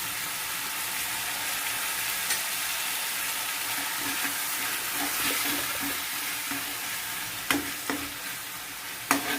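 Ground mint paste sizzling in hot oil in a kadai as it is stirred, a steady frying hiss as it is cooked until its raw smell is gone. A few sharp clicks near the end.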